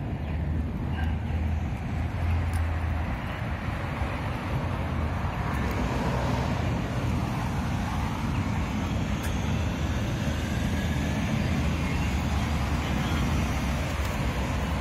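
Steady city street traffic noise: passing cars with a constant low rumble.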